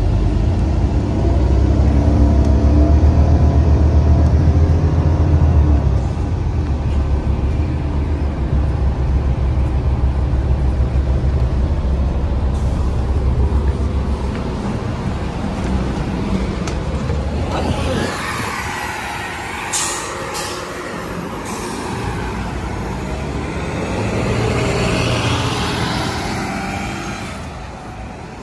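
City transit bus engine running heavily close by, then fading as it pulls away into road traffic. A few short hisses come about two-thirds of the way in.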